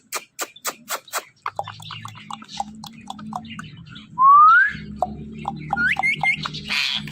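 Ringneck parrot clicking and chirping in quick short notes, then giving a loud rising whistle about four seconds in. A few short rising whistle notes and a brief harsh squawk follow near the end.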